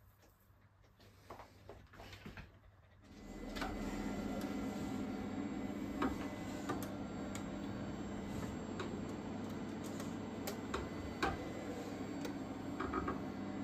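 Faint fabric rustling, then, about three seconds in, an SWF multi-needle embroidery machine starts running with a steady mechanical hum and clatter, broken by occasional sharp clicks.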